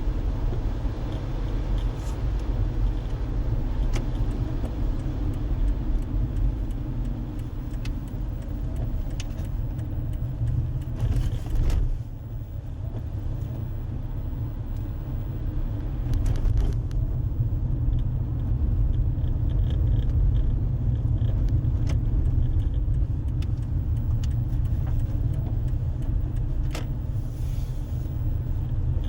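A car driving along, with a steady low rumble of road and engine. Now and then there is a short click or rattle, and about 11 seconds in there is a brief louder rush.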